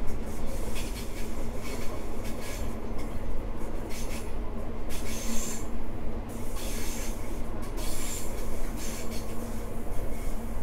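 High Speed Train (HST) running along the line: a steady rumble of wheels on rail with a constant low hum, and repeated short bursts of high hissing noise.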